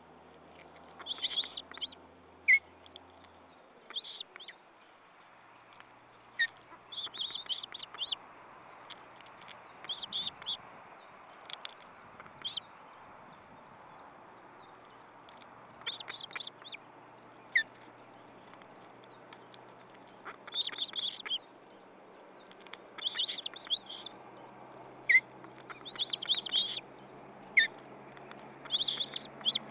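Ospreys at the nest calling: repeated short series of high, thin chirps, about a dozen bursts spread through, with a few single sharp notes in between, over a faint steady hiss.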